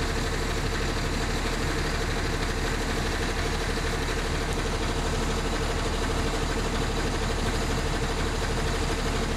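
A motor running steadily: a constant hum with a held mid-pitched tone over a low rumble.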